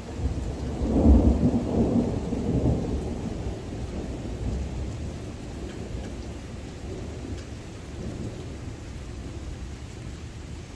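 A clap of thunder breaks in suddenly, loudest about a second in, then rolls and fades away over several seconds, with steady rain underneath.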